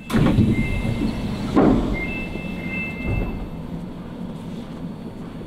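Subway car doors closing with two heavy thuds, while a two-tone chime sounds over the steady low rumble of the train.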